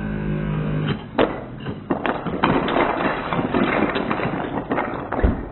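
A motorized Nerf dart blaster whirs steadily for about the first second. Then foam darts hit a tower of wooden Jenga blocks and it collapses, the blocks clattering onto a wooden floor in a run of sharp knocks for about four seconds, with a low thud near the end.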